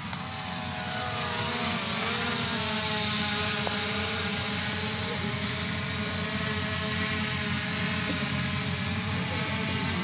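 Quadcopter drone's propellers whirring, several steady tones that shift a little in pitch as it manoeuvres, growing louder over the first couple of seconds and then holding.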